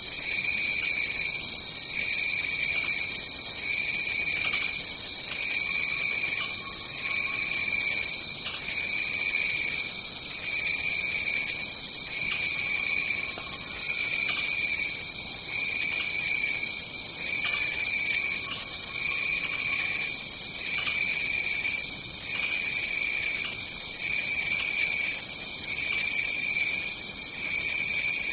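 Tropical rainforest night ambience: a steady high-pitched insect chorus, with a second, lower call pulsing on and off about every second and a half.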